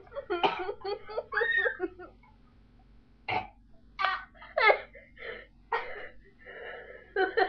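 A young woman laughing, then coughing and spluttering in short, separate bursts, typical of choking on a mouthful of ground cinnamon.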